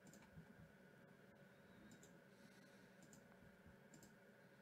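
Near silence with a few faint, scattered computer mouse clicks.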